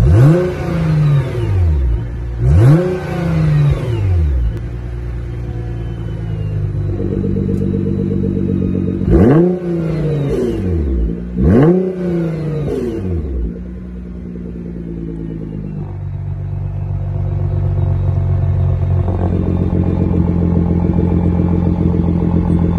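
Nissan GT-R R35's twin-turbo V6 through an Armytrix valved exhaust, idling and blipped four times, in two pairs, each rev jumping up in pitch and falling straight back to idle. From about sixteen seconds the idle grows louder and stays steady.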